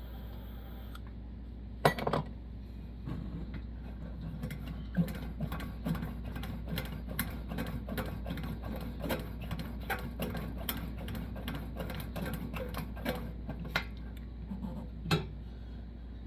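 Hand-worked clicking on a Coleman 220J gas lantern: one sharp click about two seconds in, then steady rhythmic clicks two or three times a second until shortly before the end.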